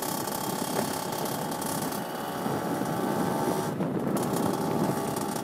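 Two-stroke Derbi Senda moped engine, bored out with an 80 cc top-end kit, buzzing steadily under way, heard from the rider's helmet; the engine note eases off briefly a little past two-thirds through, then picks up again.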